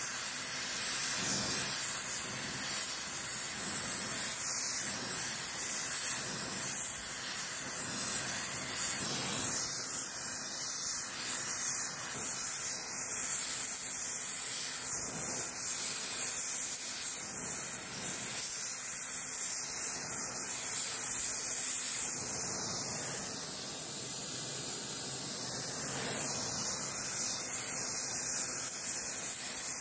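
Gas brazing torch flame hissing steadily while a joint on an iron drill spindle is brazed with bronze filler rod.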